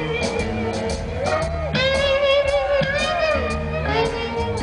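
Live blues-rock band playing: an electric guitar solo of long held notes that bend up and down, over bass and drums with cymbal hits.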